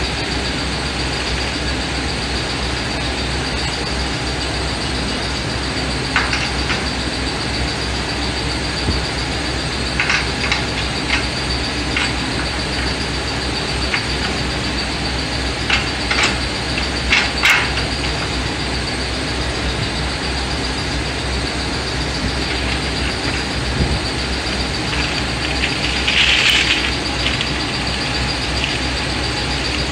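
A steady mechanical drone with a low hum, and over it a few light metallic clinks and knocks of steel suspension parts and tools being handled. A short scraping rattle comes near the end.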